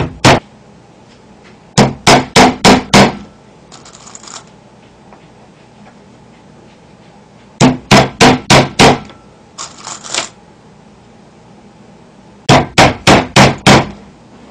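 Hammer driving nails into a round slice of log: short runs of sharp blows, about three a second, with pauses of a few seconds between runs and a brief rustle in each pause.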